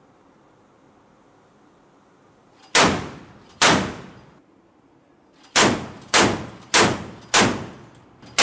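Mk 38 Mod 2 Typhoon 25 mm naval gun (M242 Bushmaster chain gun) firing single shots, each with a trailing echo: two shots about a second apart, a pause, then a steady run of shots roughly every 0.6 seconds through the end.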